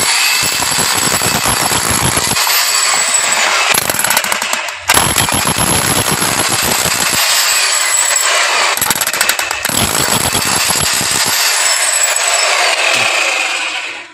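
Progen 9516-HG 7 kg electric demolition hammer with a point chisel, hammering into a concrete block and breaking it up. The hammering is loud and continuous, stops for a moment about five seconds in, then starts again.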